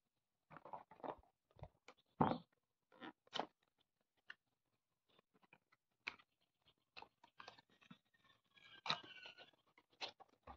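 Cardboard perfume box and its paper insert being opened and handled: irregular rustles, scrapes and taps as the glass bottle is slid out.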